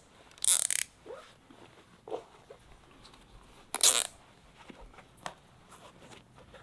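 Plastic zip tie being cinched tight around a person's wrists: two short ratcheting zips, about half a second in and about four seconds in, with small clicks and cloth rustle between.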